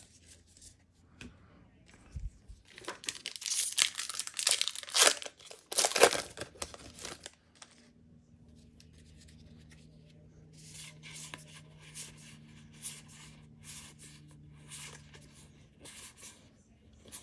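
A Modern Horizons 2 set booster pack's foil wrapper is torn open and crinkled, loudest from about three to seven seconds in. Then comes a run of soft, quick flicks as the cards inside are handled and fanned through, over a faint low hum.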